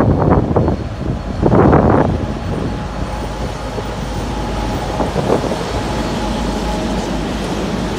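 Soviet-built M62 diesel freight locomotive, with its two-stroke V12 engine, passing close by, followed by a string of tank wagons rolling past with a steady noise of wheels on rail. Two loud surges come in the first two seconds, as the locomotive goes by.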